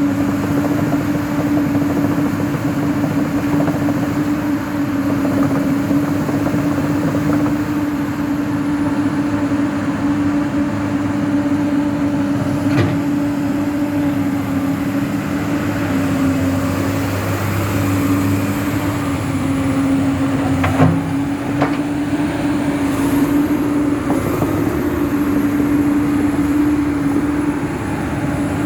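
Komatsu PC200-8 hydraulic excavator's diesel engine running steadily, with a constant low hum and a few short knocks in the second half.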